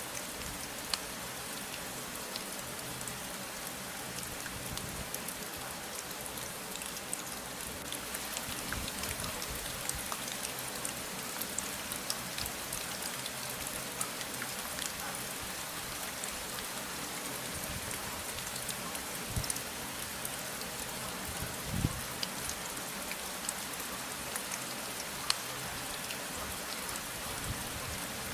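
Steady rain falling, an even hiss with scattered individual drop ticks and a few soft low thuds.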